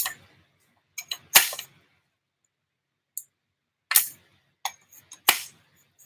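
Park Tool bicycle repair stand being folded up: a string of sharp clacks and knocks as its tubular legs swing shut and strike each other, in uneven clusters of one to three.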